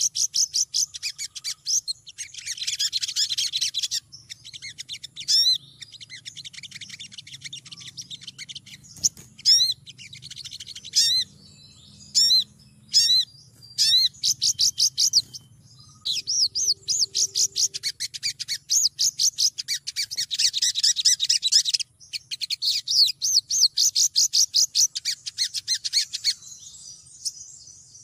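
Female olive-backed sunbird calling: long runs of fast, high, thin twittering notes, broken by single sharp chirps and short pauses. It is the excited call of a hen in breeding condition calling for a male.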